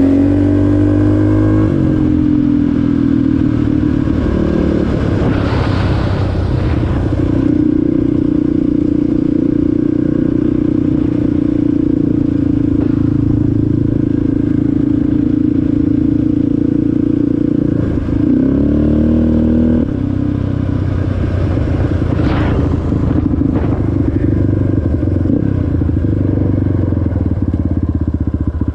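Off-road motor vehicle engine running under way at steady revs, the note dropping and climbing again at changes of throttle or gear near the start and about two-thirds through.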